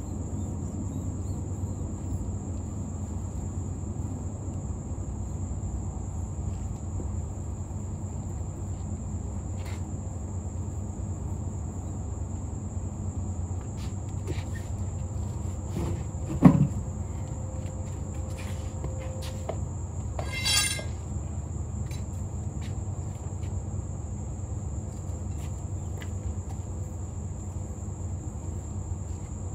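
Insects trilling steadily in one high-pitched tone over a low background rumble. About halfway through comes one sharp knock, and a few seconds later a short rattling burst.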